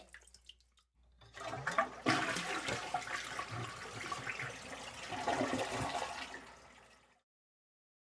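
Toilet flushing: water rushes in suddenly about two seconds in, swells, then drains away and stops about seven seconds in.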